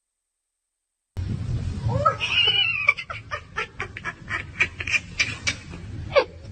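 A cat's meow rising and falling in pitch, followed by a person laughing in short rapid bursts, about four a second.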